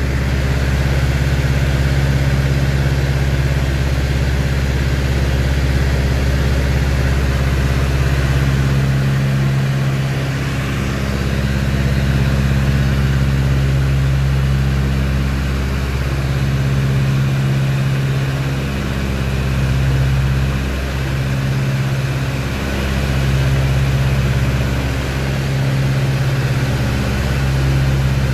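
Beechcraft 18's radial engines running steadily in flight, heard from inside the cockpit, the steady low drone swelling and dipping slowly every few seconds.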